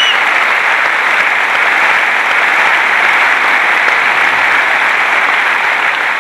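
Large arena audience applauding, a dense, steady clapping that holds at full strength throughout.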